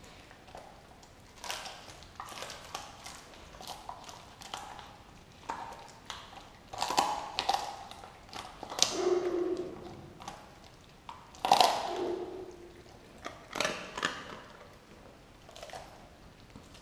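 A Doberman tearing at and chewing a whole raw turkey carcass: irregular wet crunches, snaps and tearing, with louder bouts of crunching about seven, nine, twelve and fourteen seconds in.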